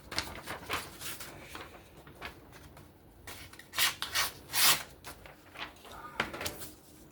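Chavez RCK9 folding knife making test cuts: short slicing strokes through some material, with three louder ones about four to five seconds in, among small handling clicks. The cuts check how sharp the edge still is after heavy use.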